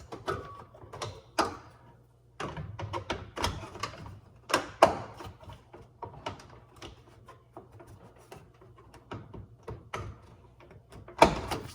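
Plastic molding on a microwave door being pried loose with a metal scraper: irregular clicks, scrapes and knocks as its clips are worked out, with the loudest knock near the end.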